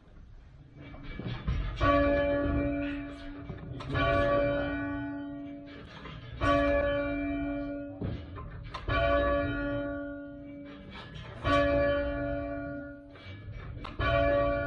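A church tower bell rung by rope in change-ringing practice: six strokes about every two and a half seconds, each one humming on and fading before the next.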